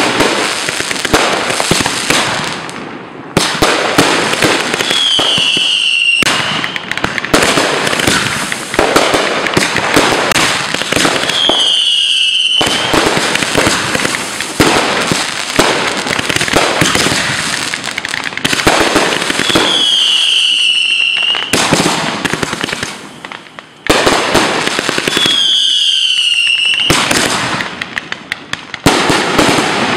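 Fireworks bursting overhead in quick succession, a loud, near-continuous run of cracks, pops and crackling with brief lulls about 3, 12 and 23 seconds in. Four short whistles that dip and rise in pitch cut through the barrage.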